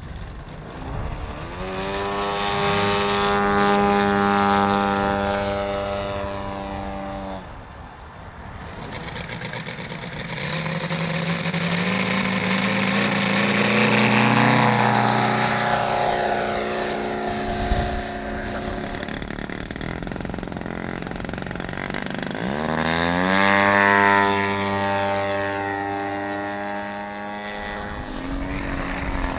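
Propeller engine of a radio-controlled model aircraft running at high revs in three separate runs. The first rises in pitch and then holds steady. The middle one shifts up and down in pitch in steps. The last sweeps up in pitch, then cuts off.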